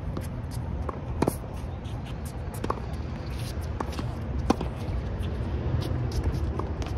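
Tennis rally: racquets striking a tennis ball, heard as sharp pops every second or so, two of them louder than the rest, over a steady low background rumble.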